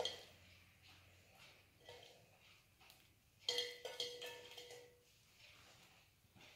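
A few light clinks and knocks of kitchen utensils against cookware. The loudest, about three and a half seconds in, rings on briefly like struck metal.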